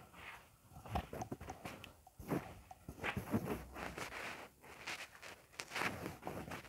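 Footsteps: faint, irregular steps and scuffs, a few a second.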